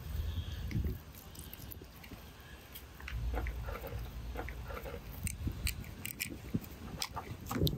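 Knife slicing through raw catfish flesh as a large fillet is cut away from the skin, with wet squelching and scattered small clicks of the blade.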